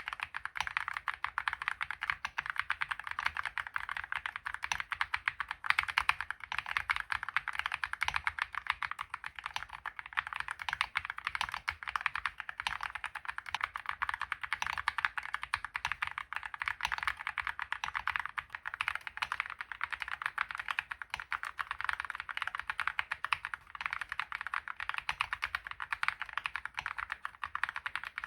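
Continuous fast typing on a Leobog Hi75 mechanical keyboard with KTT Kang-White linear switches and KiiBOOM Sprout Picnic PBT keycaps in MOA profile: a dense, even stream of keystrokes.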